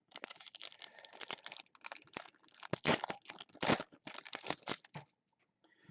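Trading-card packs and cards being handled: a dense run of crinkling and rustling that stops about five seconds in.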